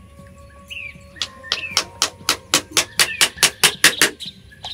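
A fast run of sharp, regular knocks, about five a second, starting about a second in and stopping near the end, with birds chirping behind them.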